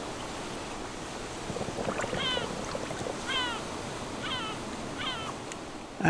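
Sea surf washing over shore rocks in a steady rush that swells briefly about two seconds in. From about two seconds in, a bird gives four short, downward-slurred calls, about one a second.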